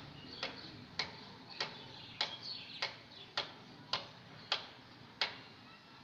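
A series of about ten sharp ticks, roughly one every half to two-thirds of a second, stopping shortly before the end.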